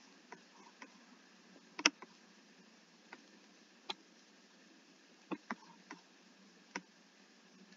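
Faint, scattered clicks of a computer mouse and keyboard, about ten at uneven spacing, the loudest about two seconds in.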